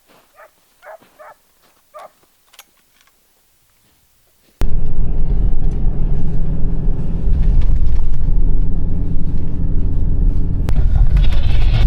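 A few faint dog yips, then an abrupt cut about four and a half seconds in to a loud, steady low rumble that carries on to the end.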